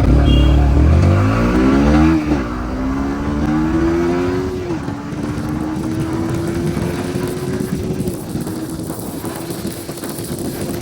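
Yamaha MT-15's 155 cc single-cylinder engine accelerating hard from a standstill, its pitch climbing through each gear. It shifts up about two seconds in, again near the five-second mark and once more near eight seconds, with each climb slower than the one before.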